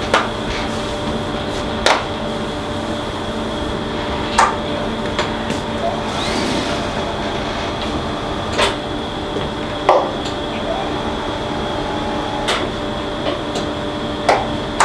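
Steady hum of radiotherapy treatment-room equipment, with sharp clicks or knocks every one to three seconds.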